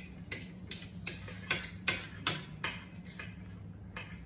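A regular series of sharp taps or clicks, a little over two a second, over a steady low hum.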